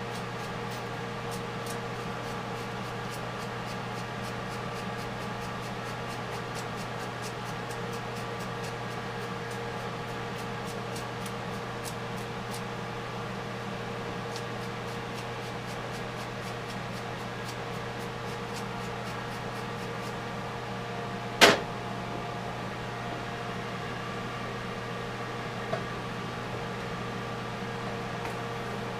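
A steady electrical hum, as from shop machinery left running, with faint scattered ticking. One sharp click comes a little over two-thirds of the way through.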